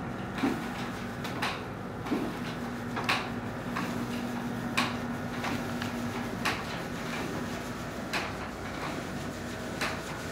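Motorized window shades closing: a steady low motor hum, with a light click about every second and a half as the shade travels.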